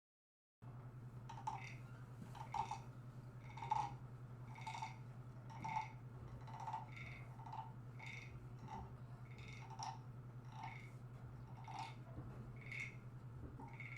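Soft, light taps on drums, evenly spaced about once a second, over a steady low hum: the quiet opening of a class drum 'rainstorm'.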